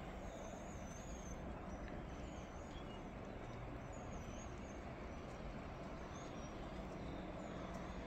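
Steady low outdoor rumble of distant traffic, with a small bird chirping faintly every second or two above it.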